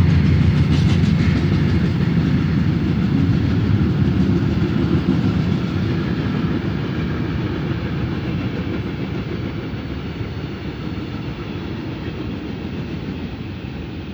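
Freight train rolling past on the rails with a low rumble and wheel clatter, fading steadily as it moves away.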